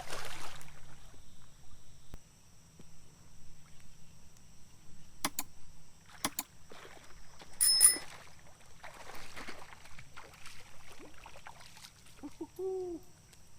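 Scattered handling noises: a rustle, then a few sharp clicks, the loudest one ringing briefly, over steady high insect trilling.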